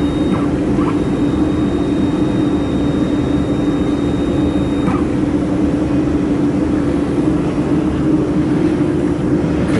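Steady drone of a running laser welding machine setup, a constant hum with a strong low tone. A faint high whine stops about halfway through.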